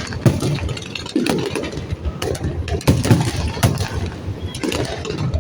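Fireworks bursting: irregular bangs and crackles over a rolling low rumble.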